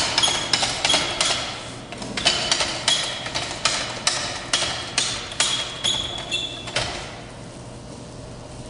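Metal calf jack (calf puller) ratcheting as its handle is worked, a run of sharp metallic clicks about two to three a second that stops about seven seconds in.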